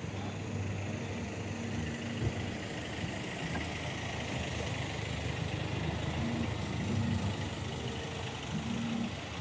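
Steady low hum of vehicle engines and traffic, an idling rumble that shifts slightly in pitch now and then.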